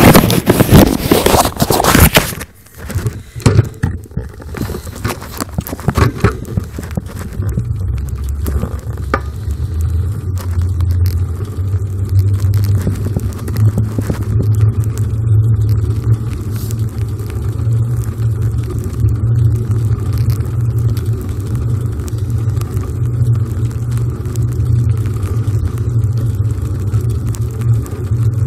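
Loud crackling and scraping handling noise of a phone being gripped for the first couple of seconds, then a steady low rumble of wind buffeting the phone's microphone as the bicycle rides along.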